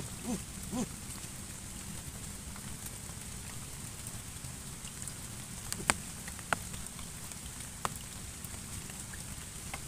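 Heavy rain falling steadily on a pond's surface, with a few sharp taps, the loudest about six seconds in.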